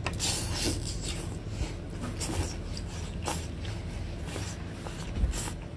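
Close-up eating sounds of a sauce-coated octopus tentacle being sucked and slurped into the mouth: a run of short, irregular wet sucking noises.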